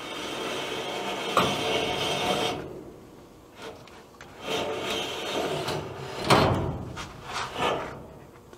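A 1-inch furnace air filter being slid out of its slot at the furnace: a scraping rub for about two and a half seconds with a knock partway through, then scattered bumps and rubs with a louder knock a little after the middle.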